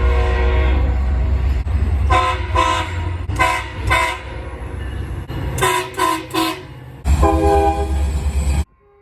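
Train horn sounding a series of blasts: a long one at the start, then two groups of short toots, then another long blast that cuts off abruptly near the end. A deep rumble lies under the long blasts.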